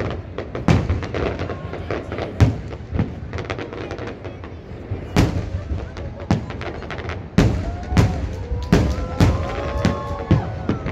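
Fireworks display: aerial shells bursting in a quick run of booms and sharp bangs, with crackling between them.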